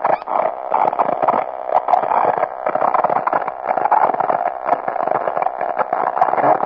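Dense, fluctuating noise with a narrow, radio-like range and scattered sharp clicks: a processed sound texture from a track accompanying a book on music and technology.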